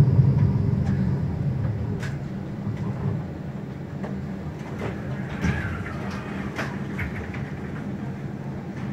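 Frankfurt tram heard from inside the car as it slows to a halt: the low running rumble fades away over the first few seconds. It is followed by the steady low hum of the standing tram, broken by a few sharp clicks.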